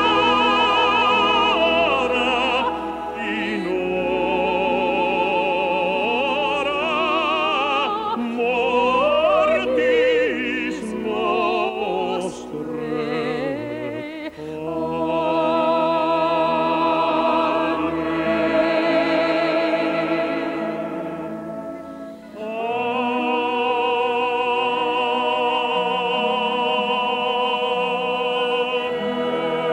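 Operatic singing with strong vibrato over orchestral accompaniment, in long held notes. The music dips briefly twice, around the middle and about three-quarters through, before swelling again.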